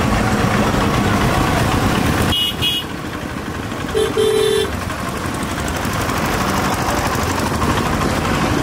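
Traffic noise in a congested jam: engines running amid general street noise. About two and a half seconds in come two short high beeps, and about four seconds in a vehicle horn honks, a short toot then a longer one.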